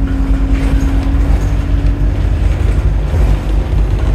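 Bus engine running with a heavy, steady low rumble, heard from on board; a steady hum sits over it and fades out about halfway through.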